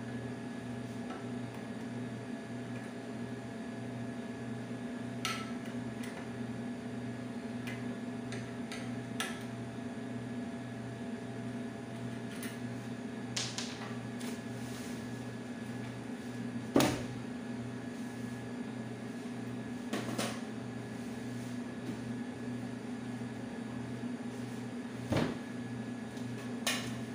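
Scattered metallic clinks and knocks as a hand screwdriver and hands work on the underside of a steel chair frame, the loudest knock about two-thirds of the way through. A steady low electrical hum runs underneath.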